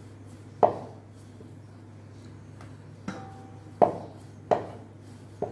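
Five sharp knocks or clinks, each ringing briefly, spread unevenly over a few seconds, with a short faint steady tone between the second and third.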